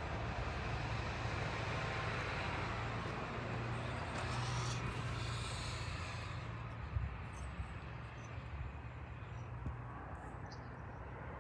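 Steady low mechanical hum with background noise, and a single knock about seven seconds in.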